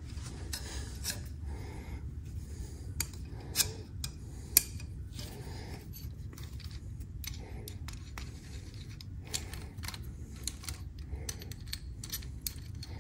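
Small metallic clicks, scrapes and creaks of a brake-line flaring tool being tightened to form a flare on the end of the steel brake line, with two sharper clicks a second apart about four seconds in. A steady low hum runs underneath.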